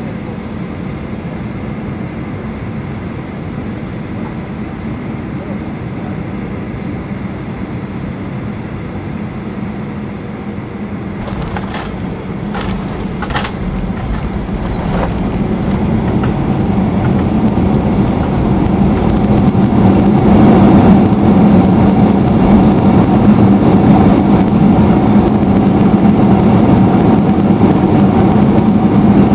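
Jet airliner cabin noise as heard by a window-seat passenger: steady engine and airflow noise on short final. About 11 seconds in comes the touchdown, with a handful of knocks and rattles over the next few seconds. The noise then swells into a loud, steady roar over several seconds as the engines go into reverse thrust on the runway rollout.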